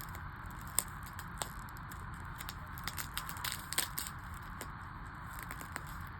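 Plastic security wrap on a CD case crinkling and clicking as it is picked at and peeled off, with a cluster of sharp crackles about three to four seconds in, over steady background noise.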